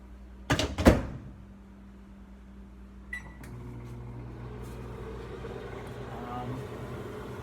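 Microwave oven door shut with two knocks, a short keypad beep about three seconds in, then the microwave starts and runs with a steady hum as a potato cooks inside.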